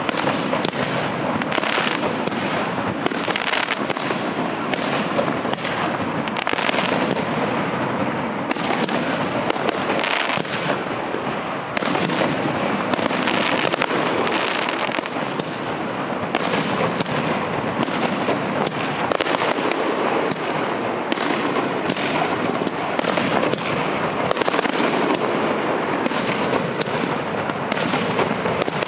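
Aerial fireworks display: shells bursting one after another in quick succession, dense and continuous with no pause.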